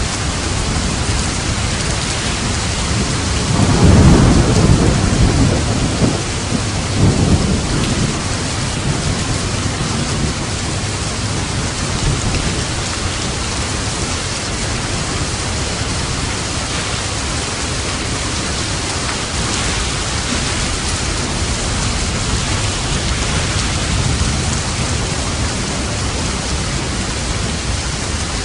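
Steady heavy rain, with a thunderclap rumbling loudly about four seconds in and a smaller roll of thunder a few seconds later, then rain alone.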